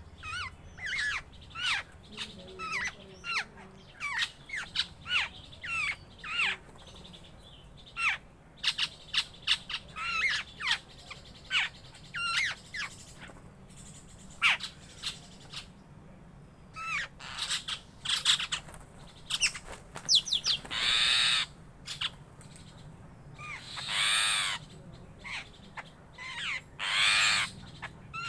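Birds calling: a run of many short, quick falling chirps, then three loud harsh calls in the last third.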